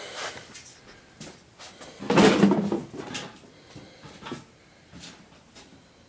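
Handling noise: a single short clunk with rustling about two seconds in, then a few faint clicks.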